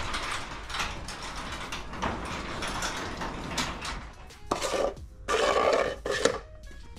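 Mechanical clicking and rattling, with louder clattering bursts over the last couple of seconds as the camera is lifted and carried.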